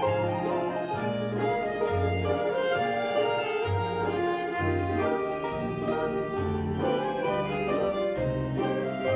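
Russian folk-instrument orchestra (bayans, domras, balalaikas) playing a lively piece, with a steady pulse of bass notes under the melody and light repeated high ticks from percussion.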